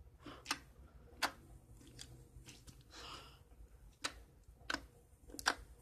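Slime being squeezed and stretched by hand, giving a handful of sharp sticky clicks and pops about a second apart, with a short soft squelch about three seconds in.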